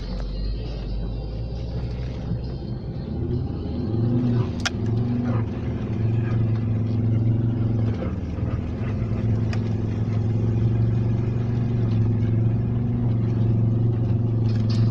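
Car engine running under load as the car climbs a snowy slope, heard from inside the cabin: a steady engine note that grows louder about four seconds in as the revs rise, eases briefly around eight seconds, then holds. A single sharp click comes about four and a half seconds in.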